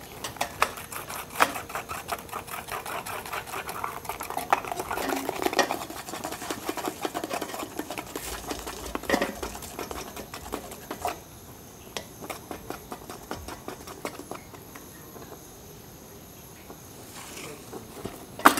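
Stick stirring dalgona sugar in a small metal ladle: a quick run of clicks and light scrapes against the ladle, thinning to softer, sparser taps after about eleven seconds, with a sharp knock near the end.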